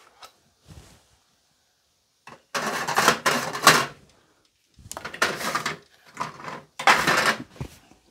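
Hands rummaging through a box or drawer of small parts, looking for the power sockets. Several bursts of rattling and clattering, the loudest about three to four seconds in.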